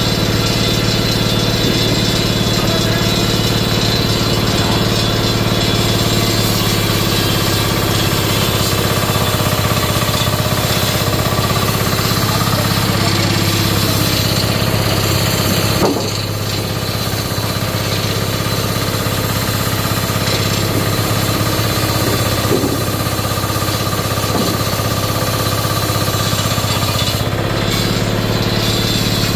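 An engine running steadily at constant speed, a continuous machine drone. About sixteen seconds in there is a single short knock, after which it runs a little quieter.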